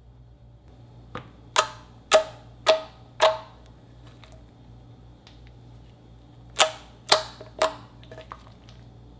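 Fingertips pressing into a mound of thick slime, squeezing out trapped air: sharp wet pops, four about half a second apart, then after a pause three more with a few smaller pops.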